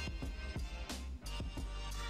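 Background music with a steady drum beat, about two hits a second, over a sustained bass.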